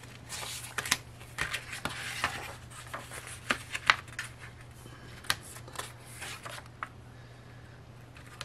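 An album photobook being pulled from a plastic CD jewel case and paged through by hand: scattered sharp plastic clicks and taps with paper rustling as glossy pages are turned, over a steady low hum.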